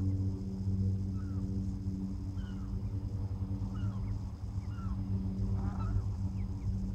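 Mallard ducklings giving short peeping calls about once a second, with a small burst of calls near the end, over a steady low hum.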